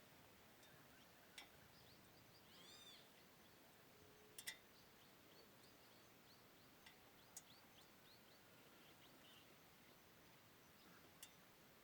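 Faint bird chirps in a quiet outdoor setting: a group of arching calls about two and a half seconds in, then a run of short high chirps, with a few sharp clicks scattered through.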